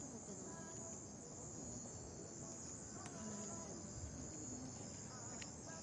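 Steady high-pitched chirring of night insects, with faint scattered sounds beneath it.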